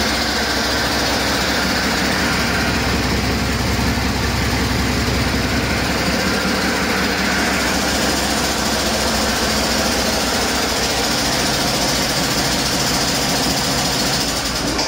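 2013 Mack MP8 inline-six turbo-diesel engine running steadily on a test stand. It is a used engine that runs excellently.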